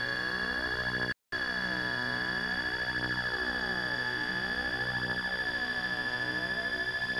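Apple II-generated electronic drone: a low tone rich in harmonics, with a bright steady overtone high above it and lower partials that pulse and shift in a rapid, even beating pattern. The sound drops out completely for an instant about a second in.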